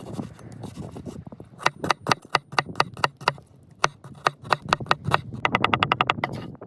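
Knife chopping food on a cutting board: sharp knocks a few times a second, then a fast, even run of strikes near the end.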